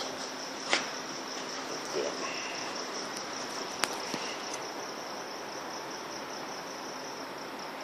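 Crickets trilling as a steady, unbroken high-pitched chorus, with a couple of faint brief clicks.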